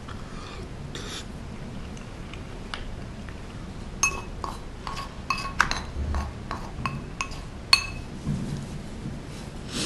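A spoon knocking and scraping against a rice bowl while rice is scooped up: a run of sharp clinks, each ringing briefly at the same few pitches, most of them in the second half.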